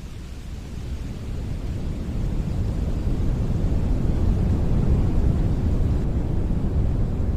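Wind blowing in gusts, a low rumbling rush that swells to its strongest about halfway through and then eases a little.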